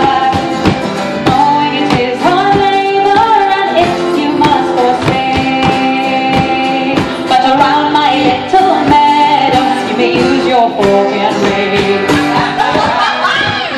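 A woman singing a folk song live, accompanied by acoustic guitar strummed in a steady rhythm. Near the end the voice gives way to sliding instrumental lines.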